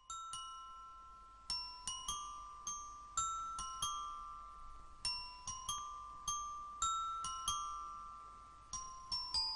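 Background music: a slow melody of bell-like struck notes, each ringing and fading, in the manner of a glockenspiel or music box.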